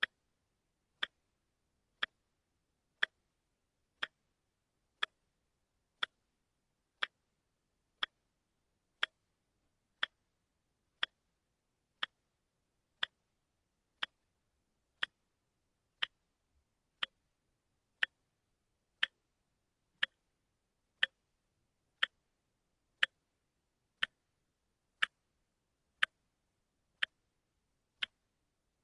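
A watch ticking once a second, each tick a short, sharp click with silence between, the one-second step of a quartz watch's second hand.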